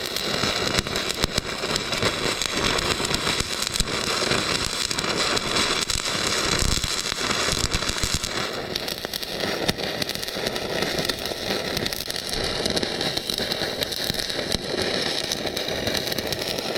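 Stick (shielded metal arc) welding: the electrode arc crackles and sizzles steadily as a bead is laid on a bracket on a steel loader bucket, running until the rod is burnt nearly down.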